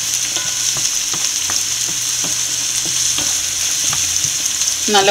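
Sliced onions, green chillies, ginger and garlic sizzling in hot oil in a frying pan as they are sautéed, with a spatula stirring them and scattered light taps of the spatula against the pan.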